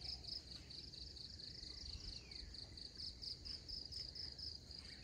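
Crickets chirping faintly in a steady, even rhythm, about four chirps a second.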